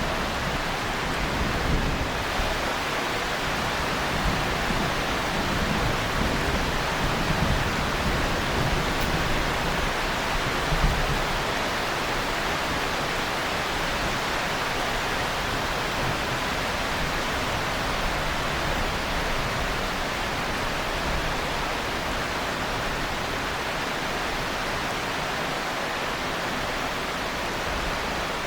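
Heavy rain falling steadily, with a few low rumbles of distant thunder in the first ten seconds or so.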